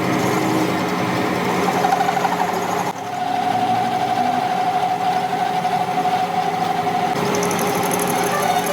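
Metal lathe running while turning a steel shaft: a steady mechanical hum with a higher steady whine that sets in about three seconds in and fades near the end.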